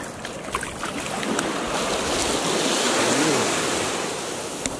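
Small waves washing onto a sandy shore, the surf rising to a swell in the middle and easing off near the end.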